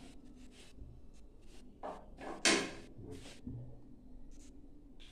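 A wooden spatula and a metal strainer set down on a frying pan: a few separate clacks and knocks, the loudest about two and a half seconds in.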